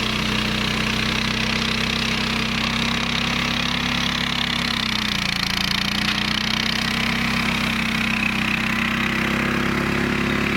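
Flail mower driven by a 15 hp Hyundai engine, running steadily under load. The engine note dips about halfway through, then climbs back and rises a little near the end.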